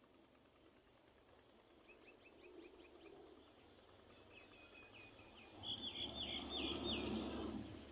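A bird calling in quick runs of short, downward-sweeping chirps, which grow louder about two thirds of the way in. A rough, noisy rush comes in with the louder chirps and fades near the end.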